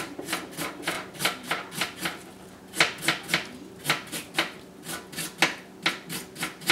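Kitchen knife chopping an onion on a cutting board: quick, even taps, about four a second, with a short break a little over two seconds in.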